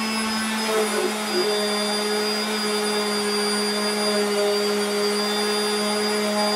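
Electric random orbit sander running steadily against oak plywood, sanding the edges flush: a steady motor hum over a hiss.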